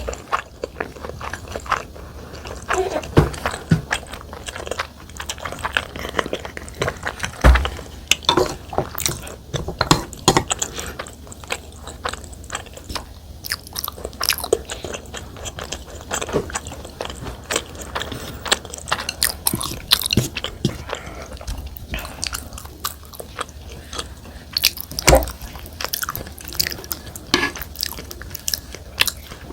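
Close-miked mouth sounds of a person eating soy-sauce-marinated salmon with rice: steady chewing, biting and wet smacking, with occasional sharper clicks.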